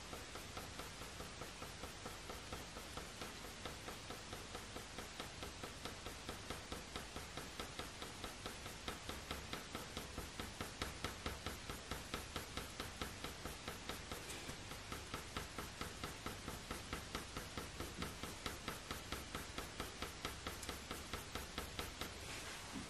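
Faber-Castell Polychromos coloured pencil scratching on hot-press watercolour paper in short, quick back-and-forth shading strokes, about three or four a second, faint and steady.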